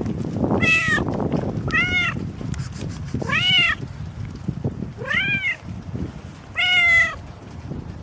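Dilute calico cat meowing five times, each meow rising then falling in pitch, over a low rustling noise.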